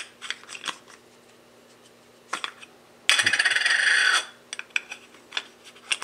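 Plastic rear lens cap clicking and tapping against a lens's metal bayonet mount as it is handled. A little past halfway it is twisted off with a loud grating scrape lasting about a second, followed by more light clicks.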